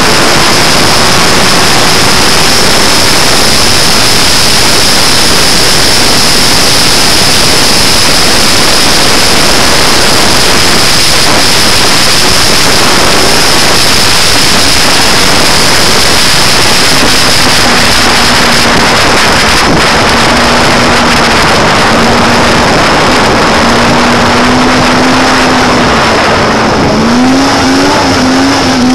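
Snowmobile running at speed, heard from a camera mounted on the sled: a loud, dense rush of wind and engine noise with a steady high-pitched whine. In the second half the engine's pitch wavers, and near the end it rises and falls quickly as the throttle is worked.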